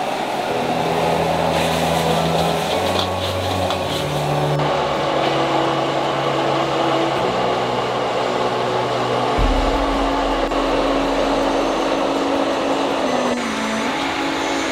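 High-output gas wok burner running at full flame with a steady roar, under stir-fry sizzling in the wok and a few metal clinks of the ladle.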